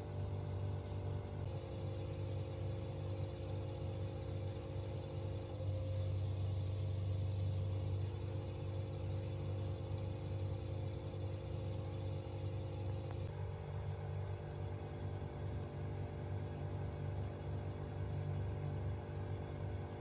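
Steady low hum of an aquarium pump, with a cluster of steady higher tones above it that change about a second and a half in and again about two-thirds of the way through.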